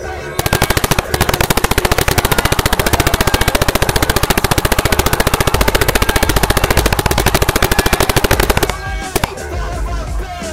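Planet Eclipse Etek paintball marker firing a long, rapid, even string of shots in PSP ramping mode for about eight seconds, then stopping, with one more shot shortly after.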